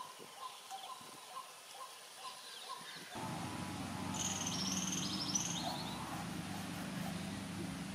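Birds calling outdoors: a short note repeated two or three times a second for the first three seconds, then a quick run of high chirps in the middle. From about three seconds in, a steady low hum sits under the birds.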